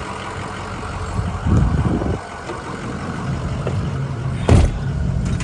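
A vehicle engine running steadily, with a few louder rough patches about a second and a half in and a sharp knock near the end.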